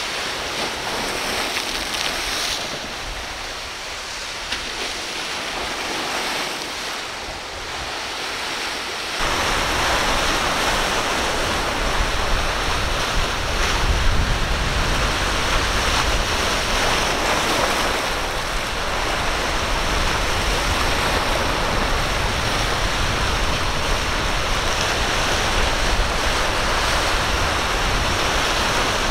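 Rough water and breaking surf, with wind rushing over the microphone. About nine seconds in it grows louder, adding a heavy low rumble of wind buffeting the microphone.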